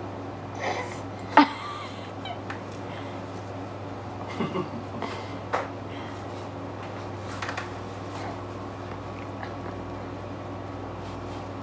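A five-month-old baby's short high squeals and coos, a handful of brief ones with the loudest about a second and a half in, over a steady low hum.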